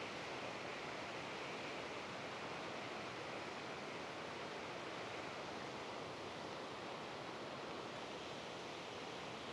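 Steady rush of water pouring over a concrete weir and churning in the pool below.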